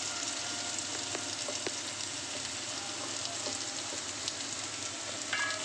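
Sliced shallots and onions sizzling steadily in hot oil in a wide metal pan, with a few faint crackles.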